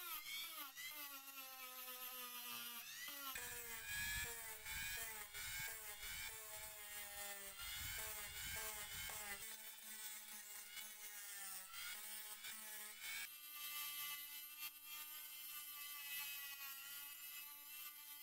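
Handheld rotary tool with a sanding drum running at high speed, sanding the metal arm of a glazing point driver. Its whine dips and rises in pitch as the drum is pressed on and eased off. For several seconds in the middle a rougher grinding noise rides under it.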